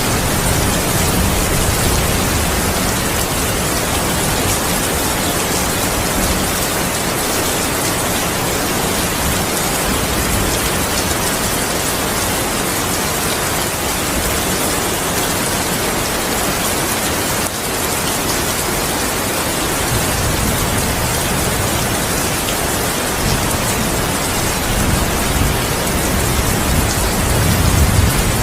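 Heavy rain falling steadily in a continuous hiss, with low thunder rumbling underneath. The rumble comes back about two-thirds of the way through and swells near the end as a thunderclap builds.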